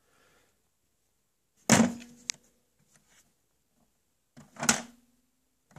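SentrySafe digital lockbox being handled: two loud thunks about three seconds apart, each leaving a short ringing hum from the box's body, with a sharp click just after the first. The second comes as the turn-handle on the lid is worked.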